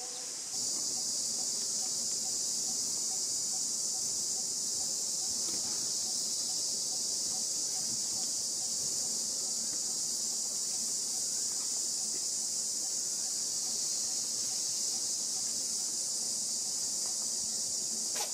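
A steady, high-pitched chorus of insects droning without a break, growing a little louder about half a second in.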